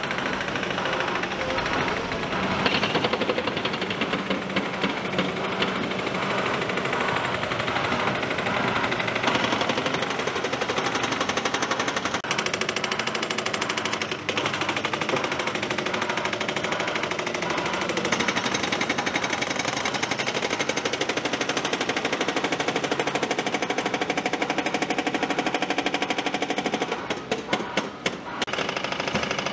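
Excavator-mounted hydraulic hammer breaking rock, a rapid, steady run of blows with a brief drop near the end.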